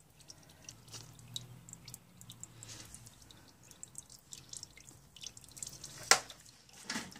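Used engine oil dripping from the oil pan's drain hole into a drain pan: a scatter of faint, irregular drips, with one sharper click about six seconds in.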